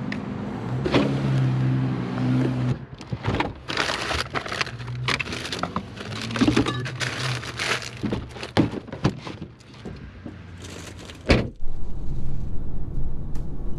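Groceries being packed from a plastic bag into a cooler in the back of an SUV: rustling, with knocks and clunks of cans and jars. A single heavy thump comes near the end. A steady low hum runs under the first few seconds.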